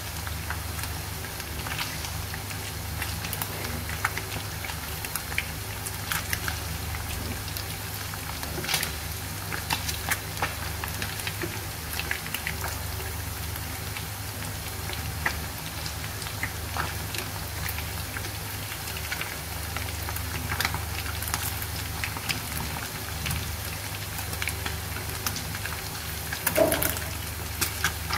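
Battered grass carp pieces deep-frying in a small pan of oil: a steady sizzle and bubbling with frequent small crackles and pops, over a low steady hum. The oil is at medium heat, about 120–150 °C, for a first fry that only firms and lightly colours the batter. A brief louder scrape comes near the end.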